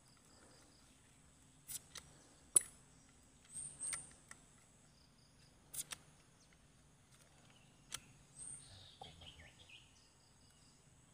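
Quiet outdoor ambience with short high bird chirps and quick series of pips, broken by a few sharp clicks, the loudest a little over two seconds in.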